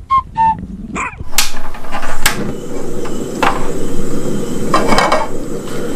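A dog gives two short, high yips near the start. From about a second and a half in, a loud, noisy rushing sound with a few sharp hits takes over.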